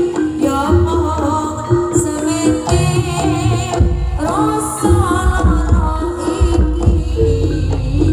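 Live Javanese gamelan music: kendang hand drums beating under repeated metallophone notes, with a voice singing a wavering melody over them.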